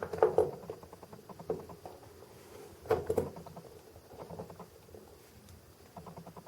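Small metal parts of a diecast crane model being handled while trying to line up a pin in its hole: scattered light clicks and taps, a louder clatter about three seconds in, and a quick run of faint ticks near the end.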